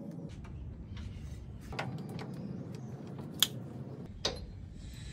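A few scattered light metallic clicks and clunks as a rear coilover shock is fitted onto its mounts, over a low steady background noise.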